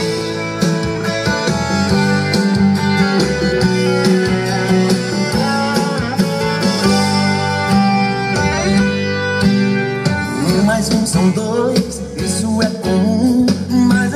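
Loud music played over a car sound system: an instrumental stretch of a Portuguese-language pop song with guitar, drums and heavy bass.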